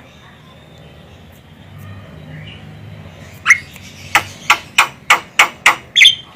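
Javan myna (jalak kebo) giving a rapid run of short, harsh calls, about three a second, starting about halfway through after a quiet stretch.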